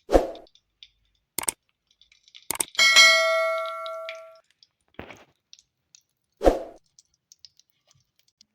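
Metal utensils clanking against a metal kadai and container while ghee is spooned into the pan: about six separate knocks, one of which, about three seconds in, rings on as a bright metallic tone for over a second.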